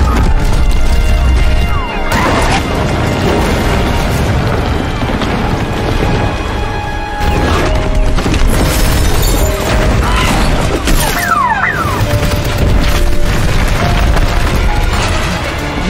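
Film soundtrack of a monster attack: loud, tense score with deep booms and crashing impacts, and a few short sliding high tones that cut through.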